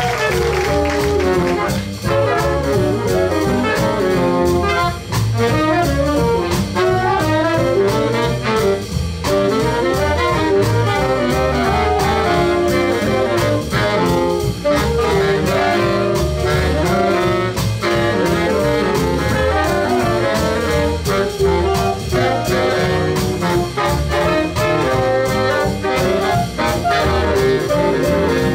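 Jazz big band playing a swing chart: saxophone section, trumpets and trombones over a steady rhythm section beat.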